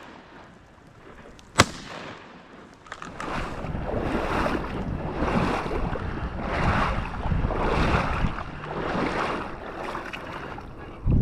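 A single shotgun shot about a second and a half in, followed by rolling swishes of noise that swell and fade about once a second.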